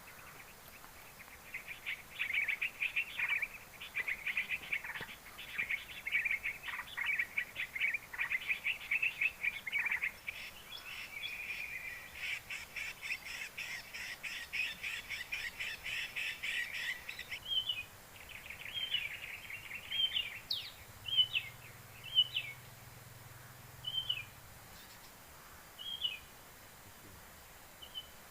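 A prinia (ciblek) singing: fast, dry trills of rapidly repeated notes in long runs, then breaking up into single short chirps every second or two in the last third.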